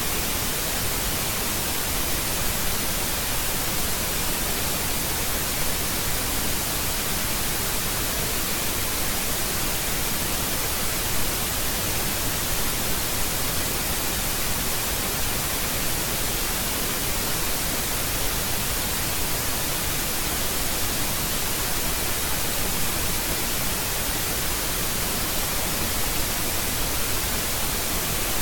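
Steady, even hiss of static noise, brightest in the treble, with no change and no other sound.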